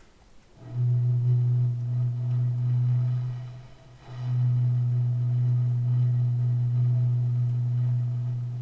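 A low, steady hollow hoot from an empty plastic kvass bottle being blown across its mouth: two long notes of the same pitch, the second starting about four seconds in.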